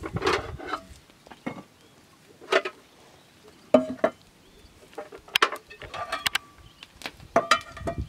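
Metal bowls clinking and knocking as they are set down one by one on stone roof slates: a string of sharp knocks, each followed by a brief metallic ring.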